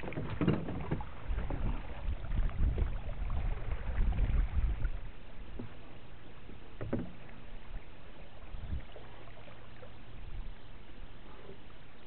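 Small sailboat under way: water washing against the hull, with a louder low rumble for the first few seconds. A few knocks come near the start and again about seven and nine seconds in.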